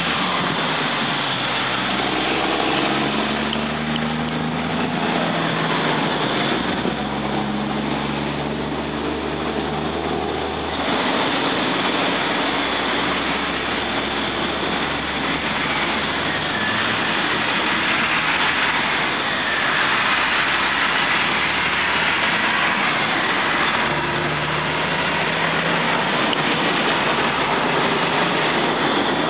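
Road traffic: cars and trucks passing one after another, their engine notes rising and falling in pitch over a constant rushing noise.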